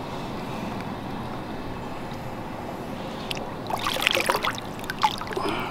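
Water splashing around a flathead catfish held by the lower jaw at the water's edge: a short burst of splashes and drips a little past halfway, then one more near the end, over steady background noise.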